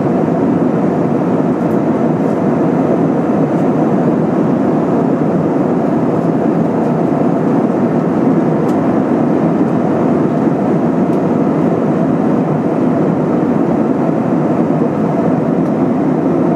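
Steady cabin noise inside an Airbus A320-232 in flight: the even drone of its IAE V2500 engines and the airflow over the fuselage, unchanging throughout.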